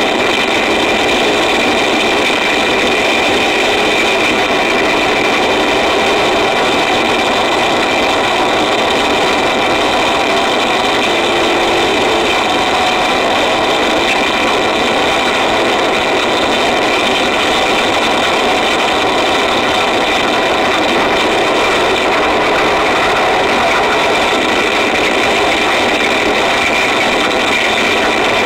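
Harsh noise music: an unbroken wall of distorted static with several held tones running through it, at a constant loudness.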